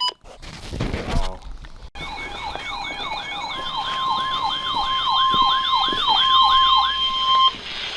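A short stretch of radio static and crackle, then an electronic yelp siren sweeping up and down about twice a second. After about a second and a half a steady high alarm tone joins it, and both cut off together just before the end.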